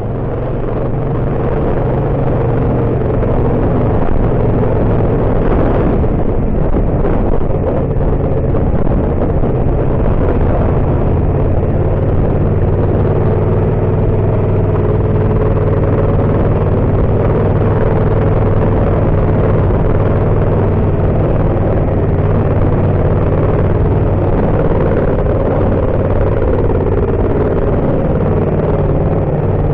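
Yamaha MT-07's parallel-twin engine running at a fairly steady speed under way, with road and wind noise beneath it.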